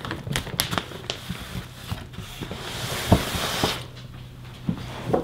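Packaging and comforter fabric rustling and crinkling as the comforter is unpacked: scattered crackles and clicks, with a denser, louder rustle lasting a couple of seconds near the middle.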